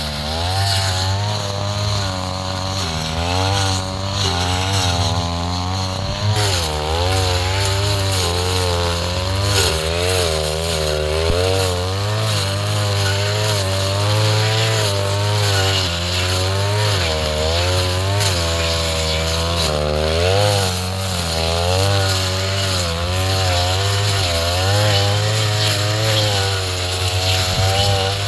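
Two-stroke brush cutter engine running hard, its pitch rising and falling every second or so as the blade swings through tall grass and takes load.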